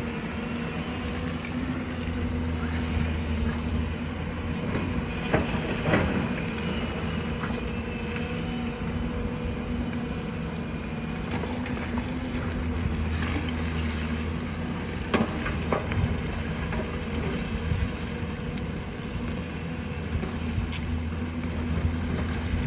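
Excavator's diesel engine running steadily under work. A few sharp knocks cut through it about five to six seconds in and again about fifteen seconds in.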